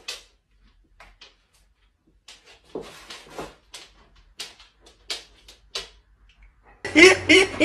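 A white dog making a few short vocal sounds that come across as it saying "Where you going?", mixed with quiet knocks and steps. About seven seconds in, loud music with voices and chuckling cuts in.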